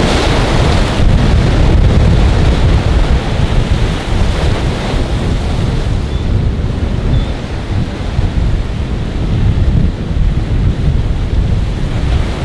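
Loud wind buffeting the microphone in a continuous low rumble, over the wash of rough, choppy surf.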